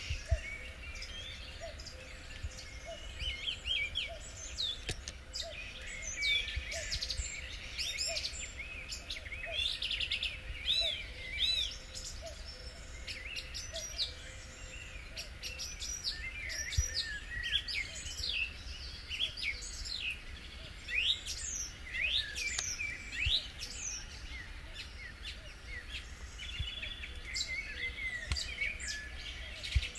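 A chorus of songbirds singing over one another, with many quick chirps and whistled phrases running throughout.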